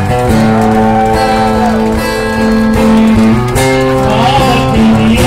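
Music with an acoustic guitar playing, with long held notes.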